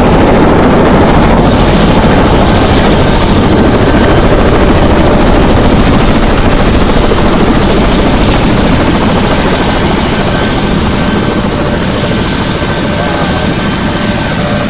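Airbus H130 (EC130) helicopter running on the pad with its rotor turning: a loud, steady rush with a thin high turbine whine over it, easing off slightly in the last few seconds.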